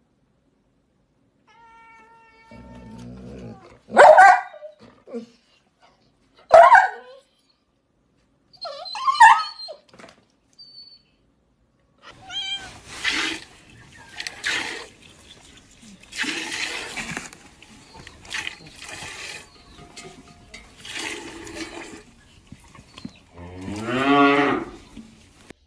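Domestic cat vocalising: three short, sharp cries a couple of seconds apart, then a stretch of noisy, breathy sound, and one long wavering call near the end.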